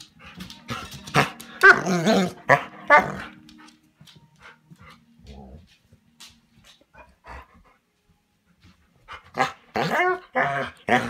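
Bernese Mountain Dog 'talking': a run of barks and grumbling vocalizations with wavering pitch, a protest at being left behind. There is a quieter gap of several seconds in the middle, then loud, drawn-out yowling calls start again near the end.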